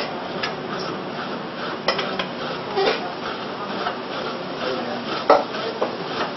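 Metal cooking utensils clinking and scraping against pots and a frying pan on a stove: irregular clinks, the loudest about five seconds in.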